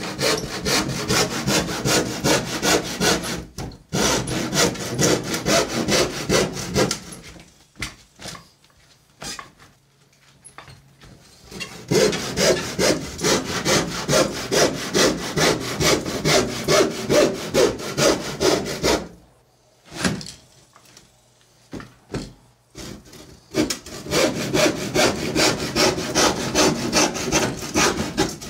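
Hand saw cutting through a wooden floor panel with quick back-and-forth strokes, about two to three a second, in three runs broken by pauses of a few seconds.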